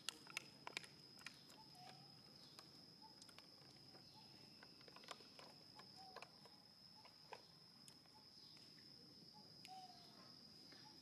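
Faint steady high-pitched insect drone, with scattered small clicks and a few soft short chirps.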